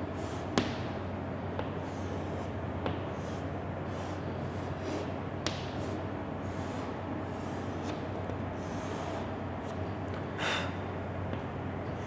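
Chalk drawing on a blackboard: short scratchy strokes and a few sharp taps as the chalk meets the board, over a steady low hum. One short breathy noise near the end.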